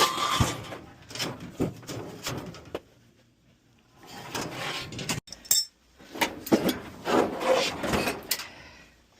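Sooty, rusted sheet-metal parts of an old lowboy oil furnace being pulled apart and handled during tear-out: scraping and clattering with sharp knocks, in three bursts with short pauses about three and five seconds in.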